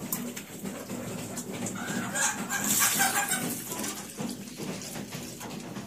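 Domestic hens clucking, a cluster of short calls about two to three seconds in, over light tapping of pigeons pecking grain from a wooden ledge.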